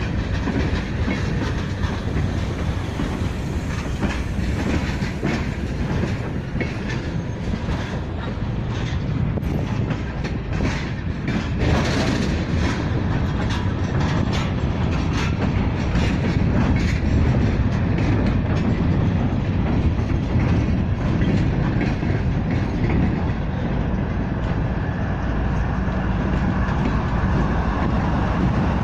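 Freight train passing at close range: loaded tank cars and gondolas roll by, their steel wheels clicking steadily over the rail joints. Near the end the train's diesel locomotives come alongside and their engines join in.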